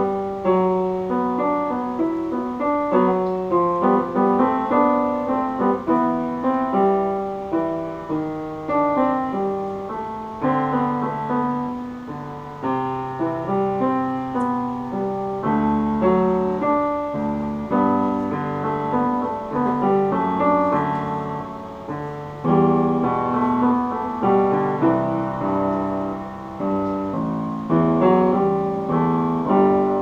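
Upright piano played solo: a continuous stream of struck notes, a melody over lower accompanying notes, each note fading after it is struck.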